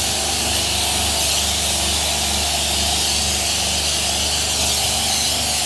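Self-service car wash pressure wand spraying shampoo onto a car: a steady hiss, with a low steady hum beneath.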